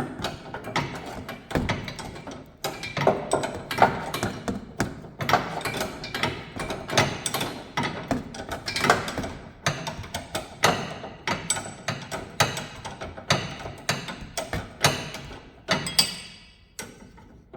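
Hand tools working on a car's sway-bar end link: an irregular run of sharp metallic clicks and knocks from a wrench and locking pliers loosening the lower nut. The knocks thin out near the end.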